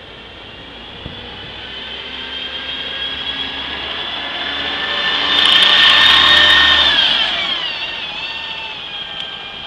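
WMATA Orion VII transit bus pulling away from a stop, its high-pitched whine getting louder as it accelerates past. It is loudest about six seconds in, then drops in pitch and fades as the bus drives off.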